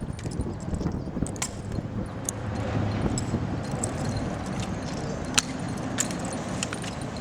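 Drill rifles being handled in an exhibition rifle drill routine: scattered sharp slaps and clacks, the loudest about five seconds in, over a steady low background noise.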